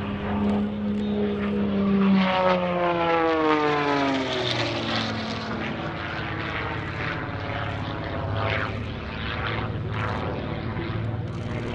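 MXS aerobatic monoplane's piston engine and propeller at high power, its pitch falling steadily from about two to five seconds in, then holding level.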